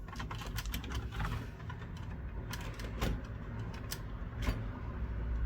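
Light, irregular clicks and taps of fingers and plastic as a connector inside a PS5 Slim is unlatched and pulled free, over a steady low hum.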